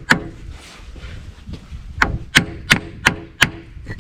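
Hammer blows on a block of wood held against a stuck fuel injector to knock it free: one blow at the start, then five quick blows about three a second near the end, each with a short ring.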